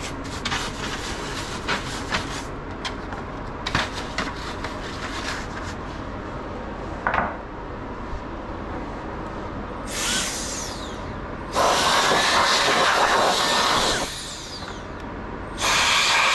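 Air blower blasting air, slightly less powerful than a compressor. A brief puff comes about ten seconds in, then two loud hissing blasts of two to three seconds each, the second near the end. Light scraping and clicks come before them.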